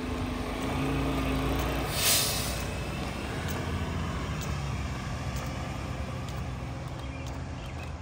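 Mack Granite garbage truck's diesel engine running as the truck pulls away, getting louder about a second in. A short, sharp air-brake hiss about two seconds in.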